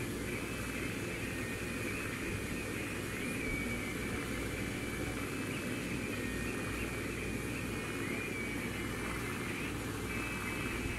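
Domestic cat purring steadily close to the microphone, a continuous low rumble, with a faint high whine behind it.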